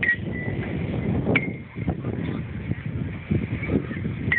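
Outdoor ambience: a steady, choppy low rumble with faint distant voices, cut by three short, sharp high chirps.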